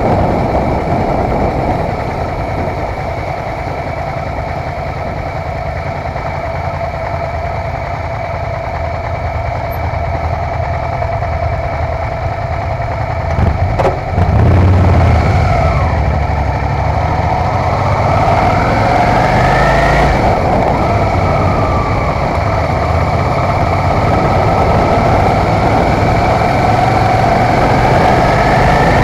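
Motorcycle engine running at town speed with wind and road noise, picked up on the bike itself. About halfway through it slows to idle beside other motorcycles, then its pitch rises as it pulls away and accelerates again.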